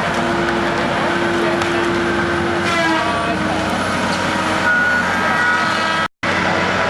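Sawmill machinery running loudly and steadily, with several held tones. A shifting whine starts about three seconds in, and the sound cuts out for a moment near the end.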